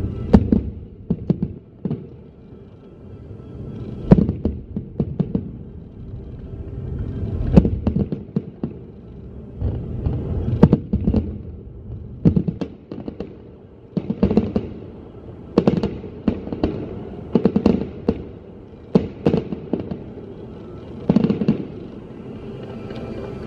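Aerial fireworks shells bursting overhead: loud bangs with crackle and echo, coming in quick clusters every one to two seconds, over a steady low rumble. The bangs stop about two seconds before the end.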